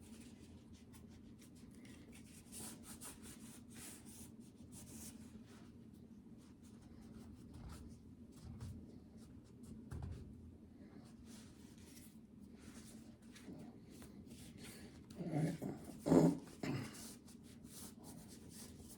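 Faint rubbing and small clicks of hands wiping and handling a pistol during cleaning, with a few louder brief sounds a little before the end.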